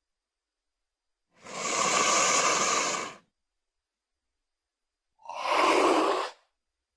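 Dromaeosaurus creature sound effect: two breathy hissing exhalations separated by silence, the first about two seconds long, the second shorter and lower in pitch.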